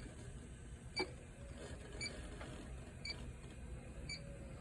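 Electronic refrigerant leak detector ticking steadily, a short high beep about once a second at its slow idle rate.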